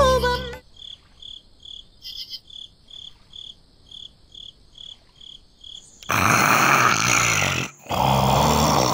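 Crickets chirping faintly, about two chirps a second. About six seconds in, a sleeping person snores, two long snores with a short break between, much louder than the crickets.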